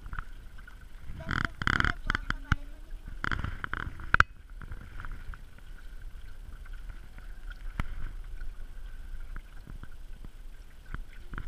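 Water washing and slapping against the hull of a 420 sailing dinghy under way, with scattered small knocks. There are two louder rushes in the first four seconds.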